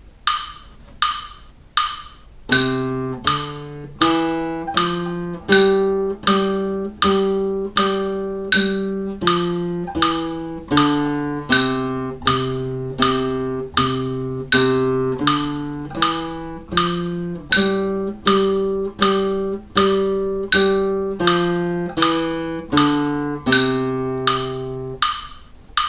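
Classical nylon-string guitar playing a slow single-note exercise on C, D, E, F and G, one note to each beat, over a metronome ticking a little under twice a second. The metronome ticks alone for the first couple of seconds before the notes come in, and the notes stop shortly before the end while the ticks go on.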